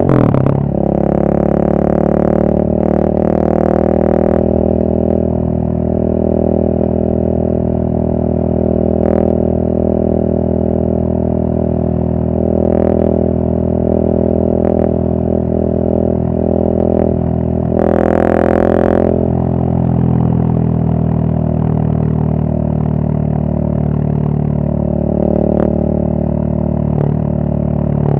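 2023 KTM 690 SMC R's single-cylinder engine, fitted with an Arrow header and muffler and a Rottweiler intake, running steadily at a cruise as heard from the rider's seat. The pitch holds mostly level, with only small changes in throttle.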